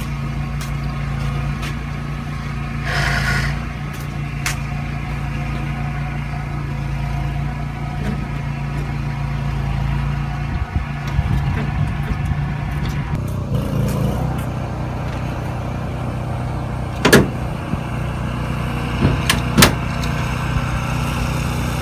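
An engine idling steadily, its hum thinning a little partway through, with a few sharp knocks near the end.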